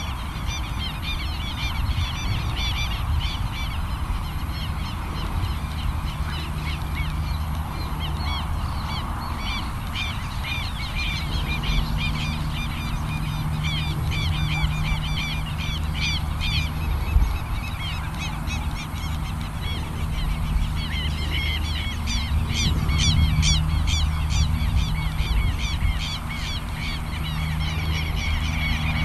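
Birds calling over and over in quick, short, harsh calls, with a low steady hum underneath that grows stronger about ten seconds in.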